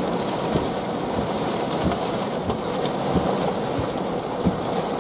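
Heavy thunderstorm rain pelting a vehicle, heard from inside: a steady rush of rain with many small scattered taps of drops striking.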